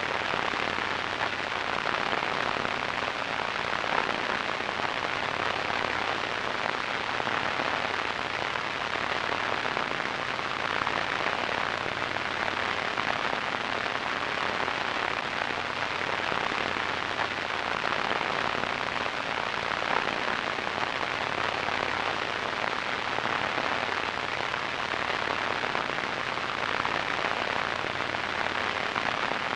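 Radio static: a steady hiss, strongest in the middle range with little high treble, flecked with fine crackle.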